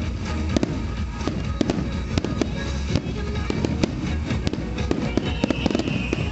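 Aerial firework shells bursting in rapid succession: a dense run of sharp bangs and crackling, several reports a second, as golden crackling stars open overhead.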